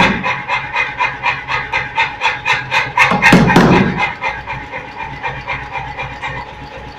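Power forging hammer beating rapidly, about five blows a second, on a red-hot steel bar end held in a die, forging it into an elliptical ball. The blows are loud until about four seconds in, then go quieter as the hammer keeps running with the piece taken out.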